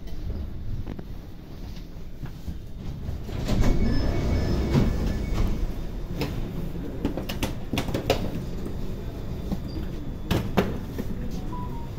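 Paris Métro MP14 train standing at a platform with a low rumble. Its sliding doors open about three and a half seconds in with a rush of sound. Passengers' footsteps and a wheeled bag then knock over the door threshold in a series of sharp clicks, and a short steady tone sounds near the end.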